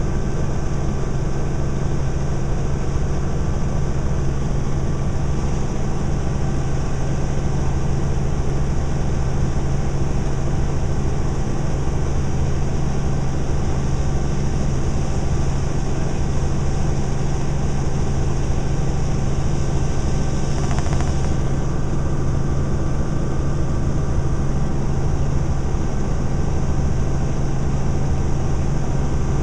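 Helicopter in flight heard from on board: a steady engine and rotor drone with a strong low hum and a fluttering low end. A brief swell of hiss comes about two-thirds through.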